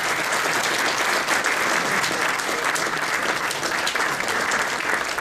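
An audience applauding steadily: many hands clapping at once in a dense, even patter.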